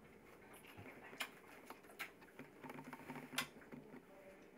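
Wolf pup suckling from a milk bottle: faint, irregular wet clicks and smacks, a few of them sharper, with a short low hum about halfway through.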